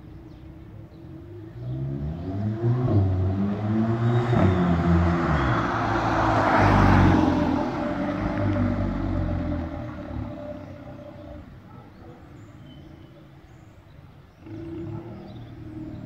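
Catless exhaust of a Volkswagen Polo GTI's 2.0 TSI turbocharged four-cylinder as the car accelerates past, rising in pitch in a few pulls and loudest as it goes by about seven seconds in, then fading away down the street. A shorter rise of engine sound comes near the end.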